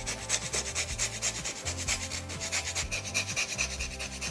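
Lime rind being grated on a fine rasp grater (Microplane-type zester): quick, even scraping strokes of the fruit against the blade, several a second.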